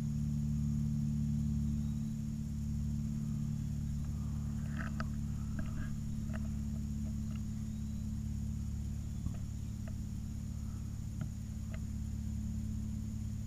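Woodland ambience under a steady low hum and a faint steady high buzz, with a cluster of short chirping animal calls about five seconds in and a few single chirps later.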